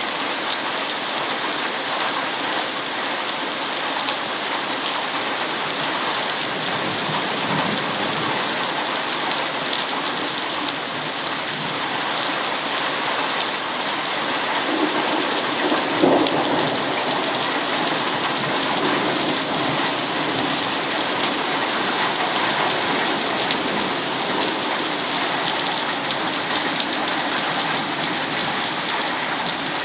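Heavy rain pouring steadily in a thunderstorm, with a louder rumble of thunder swelling up a little past halfway.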